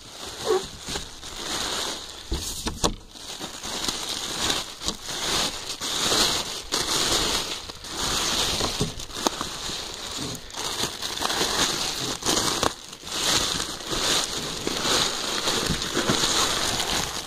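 Clear plastic packing wrap crinkling and crackling as hands rummage through it, with scattered sharp crackles.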